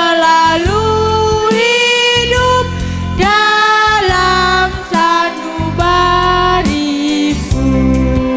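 Girls' choir singing through a PA, one female voice standing out on held, gliding notes, over amplified backing music with a heavy bass.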